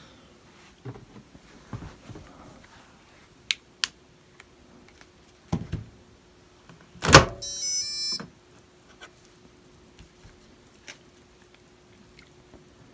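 Maytag front-load washer, its cycle ended, releasing its door lock: a heavy thunk about seven seconds in, followed by about a second of quick mechanical rattling. A few lighter clicks and knocks come before it, over a faint steady hum.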